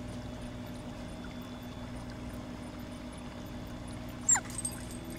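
Steady low background hum with a faint hiss, and a single short squeak about four seconds in that slides quickly down in pitch.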